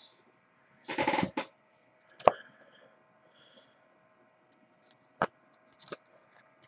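A trading-card mini box and pack being opened and handled. There is a short rustle about a second in, then a sharp click, and two fainter clicks later.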